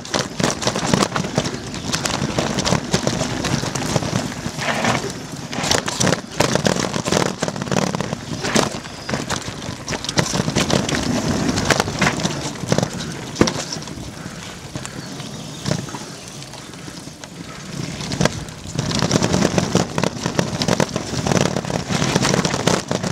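Mountain bike descending a rough dirt trail, heard from a camera riding along: a steady rush of tyre and wind noise with constant rattling and many sharp knocks as the bike hits roots and bumps. It eases off about two thirds of the way through, then picks up again near the end.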